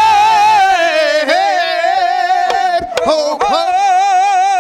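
A voice singing long, wavering held notes of a Sikh devotional verse, with a few sharp percussive strokes. The line breaks briefly about a second in and again about three seconds in before the held note resumes.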